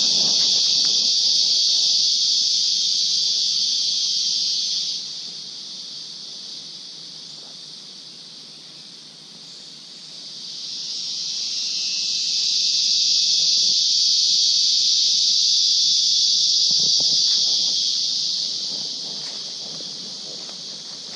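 Cicada in full song: a loud, steady, high hissing drone. It cuts off abruptly about five seconds in, swells back up around ten seconds in, holds, then fades near the end, when faint footsteps on the dirt trail come through.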